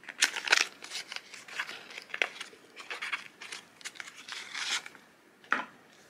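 A small cardboard Victorinox knife box being opened and a pocket knife slid out of it: a run of scraping and rustling, ending in a single sharp click.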